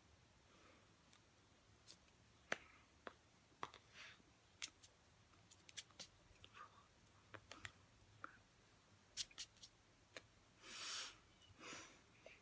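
Scattered sharp clicks and taps of hands striking and brushing against each other while signing, over near silence, with two short hissy bursts near the end.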